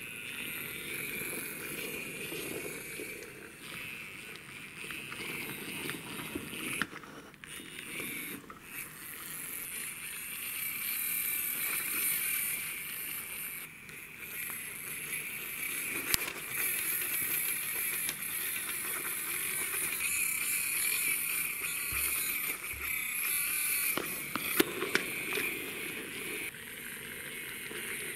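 Plastic toy semi-truck with a loaded car-carrier trailer pushed by hand along the floor, its plastic wheels rolling with a steady noise and a few sharp clicks and knocks.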